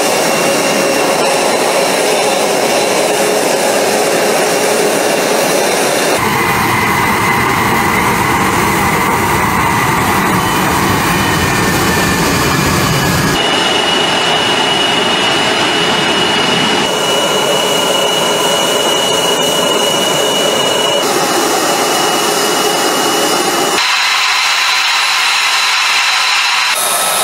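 F-22 Raptor's twin Pratt & Whitney F119 turbofans running on the ground: a steady jet rush with a high whine on top. The tone shifts abruptly several times, the whine moving up or down in pitch from one stretch to the next.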